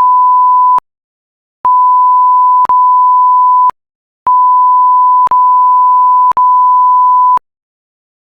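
Electronic alert tone, a single pure beep near 1 kHz, sounded in three bursts of growing length: about one second, then two, then three. It closes a mock Emergency Alert System test, where the end-of-message signal belongs.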